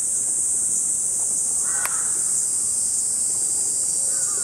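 Steady high-pitched buzzing of cicadas, with a bird calling in short harsh notes about two seconds in and again near the end.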